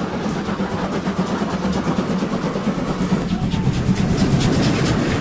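Steam locomotive running past close by, its noise growing louder as it nears, with a quick run of evenly spaced beats about three and a half seconds in.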